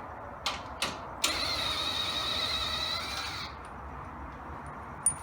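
Two light clicks of a tool fitted to a bolt, then a small power tool's motor whirring for about two seconds, spinning out one of the bolts that hold the race car's front end on; a sharp metallic click follows near the end.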